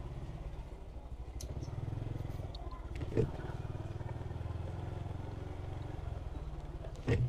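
Motorcycle engine running steadily while riding, a low even rumble, with a couple of brief knocks, one about three seconds in and one near the end.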